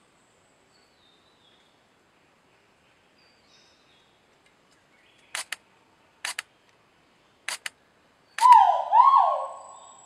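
Three sharp double clicks of a camera shutter, then a male great argus pheasant gives a loud call of two notes, each falling in pitch, about eight and a half seconds in.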